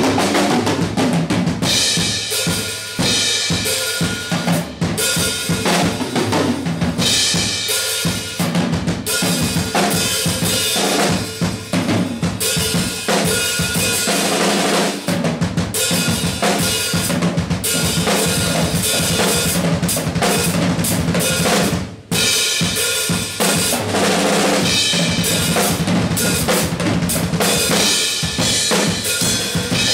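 Drum kit solo, played without pause in dense strokes across the whole kit, with a momentary break about three-quarters of the way through.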